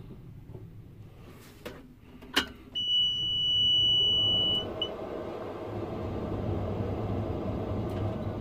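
Inside the cab of a Case IH 2188 combine: a sharp click, then a steady high-pitched warning beep for about two seconds, while the combine's diesel engine starts and runs, its rumble building toward the end.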